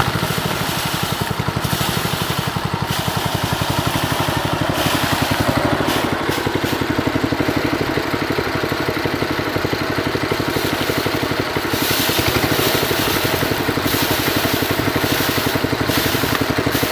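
Small engine running steadily to drive a homemade rice thresher, with a rushing hiss that comes and goes as the rice is threshed.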